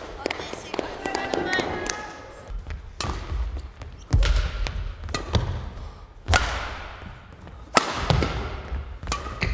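Badminton rally: sharp cracks of rackets striking the shuttlecock a second or more apart, the loudest about three, six and eight seconds in, with thuds of players' footwork and lunges, echoing in a large hall.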